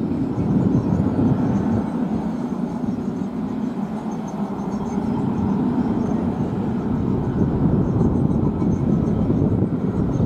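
Distant Boeing 737-900 jet airliner on approach with gear down, its CFM56 engines heard as a steady low rumble with no distinct whine.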